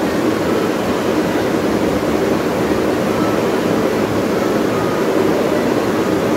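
Steady rushing noise of blowing air from a room's cooling unit, running evenly with no rhythm or change.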